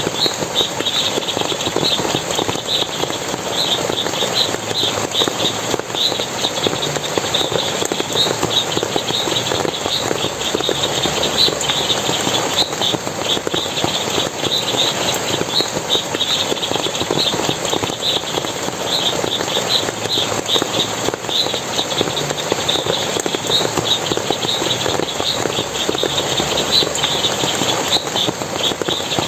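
Steady rush of splashing forest water, with a continuous run of short, high chirps several times a second over it.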